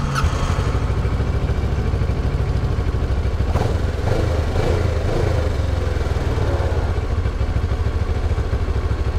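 Kawasaki Ninja 650R parallel-twin engine catching right at the start and settling into a steady idle. It starts fine on a tank dosed with a whole bottle of Techron fuel injector cleaner.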